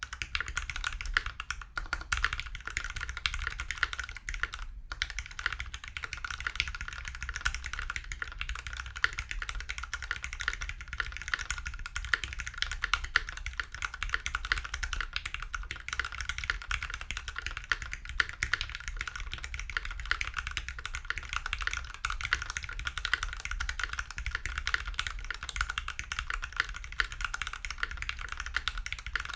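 Steady, fast typing on a custom mechanical keyboard with lubed Gateron Black Ink linear switches, a brass plate and GMK keycaps: a dense run of keystroke clacks with one brief pause about five seconds in.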